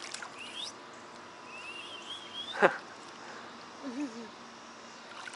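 A baby's high-pitched squeals and a short coo. A wavering squeal leads into one sharp falling squeal about halfway through, the loudest sound, and a brief low coo follows about a second later.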